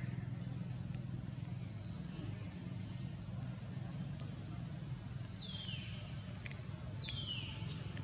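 A series of high-pitched, sharply falling call notes: quick ones through the first half, then two longer, louder sweeps near the end. They sound over a steady low hum.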